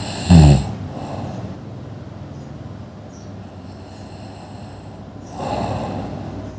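Loud snoring: a sharp snort with a falling pitch about half a second in, then a low rattling breath and another loud snore near the end.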